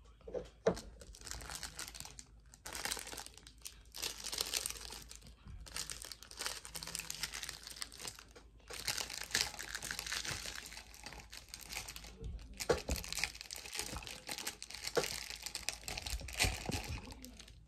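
Crinkling, rustling handling noise from hands working right at the microphone, coming in irregular stretches broken by short pauses.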